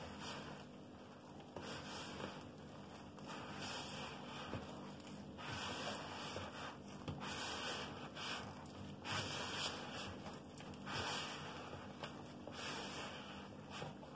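Hand kneading a shaggy, floury yeast dough in a plastic bowl. Irregular rubbing and scraping strokes come about once a second as the dough and loose flour are pushed and folded against the bowl's sides.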